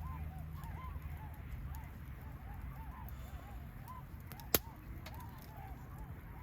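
Wood bonfire burning with a steady low rumble and one sharp pop of bursting wood about four and a half seconds in. Many short chirping calls go on throughout.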